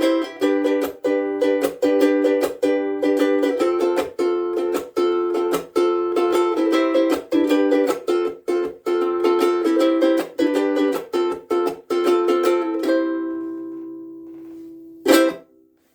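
Soprano ukulele with UkeSA strings strummed in a rhythmic chord pattern, finishing on a chord that rings out and fades over about two seconds. One brief, sharp sound follows near the end.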